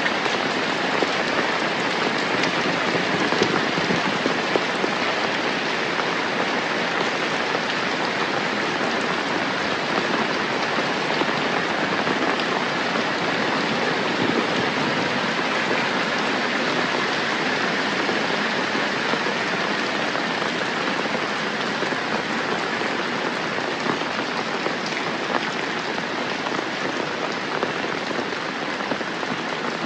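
Steady rain falling and pattering on surfaces, an even hiss of drops.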